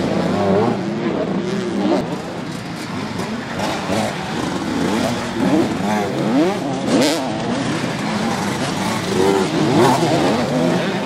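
Several motocross bikes racing, their engines revving up and backing off over and over and overlapping one another, with a few short sharp cracks.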